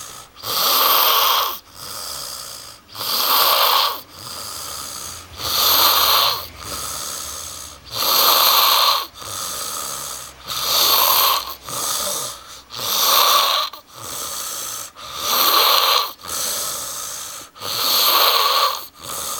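A man snoring heavily and steadily, with a loud, rasping snore about every two and a half seconds, each followed by a quieter breath.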